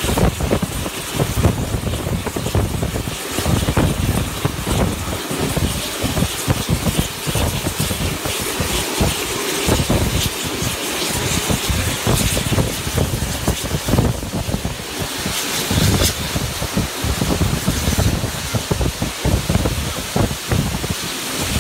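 Wind buffeting the microphone at the open window of a moving train, in irregular low gusts, over the running noise of the train.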